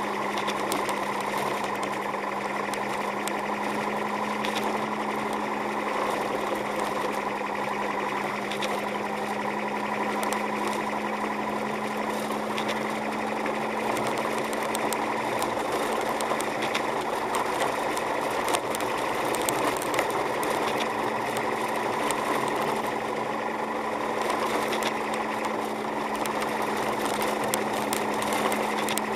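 Car driving on a snow-covered road, heard from inside the cabin: a steady engine hum with scattered light ticks and clicks throughout.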